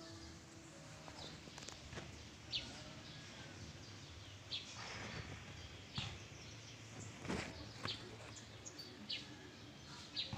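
Small birds chirping in short, high chirps every second or so over a steady low background noise.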